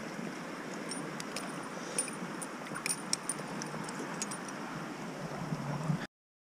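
Shallow, fast river water running steadily over stones around a wading angler's legs, with scattered small clicks and clinks; the sound cuts off abruptly near the end.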